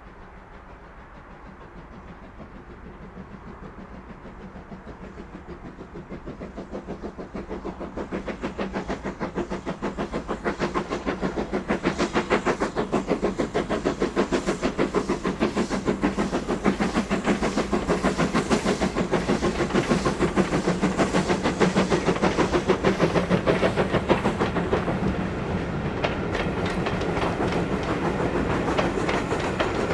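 Steam locomotive hauling a passenger train, its rapid, even exhaust beats building steadily from faint to loud as it approaches. Near the end the exhaust eases a little and the coaches' wheels clatter over the rail joints as they pass.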